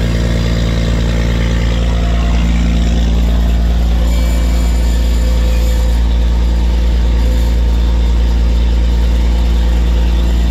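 Barge engine running steadily at low revs, a deep even drone with no revving.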